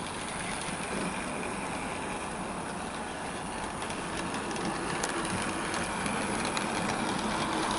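Bachmann OO gauge Peppercorn A2 model steam locomotive running light on the track: a steady motor hum and the rumble of wheels on rail, with a few light clicks, growing louder as it comes closer. It runs smoothly, with no grinding from the motor.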